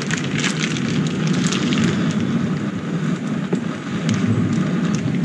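Clarified butter sizzling and crackling in a non-stick camp frying pan over a camp stove flame, a steady rush with many fine crackles throughout.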